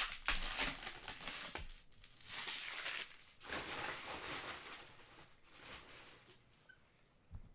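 Plastic trading-card pack wrappers crinkling and tearing as foil packs are handled and opened, in bursts that die down over the last few seconds.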